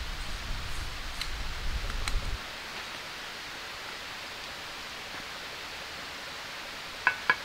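Outdoor background noise: a low rumble of wind on the microphone with two faint clicks. It cuts off abruptly to a steady hiss, and near the end a quick run of short, evenly spaced pitched notes begins as music comes in.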